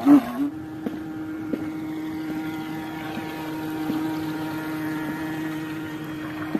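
Homemade PVC-pipe RC boat's motor running under way. A short louder burst as it pulls away at the start, then a steady hum with fainter higher tones above it, with the churn of the propeller wash.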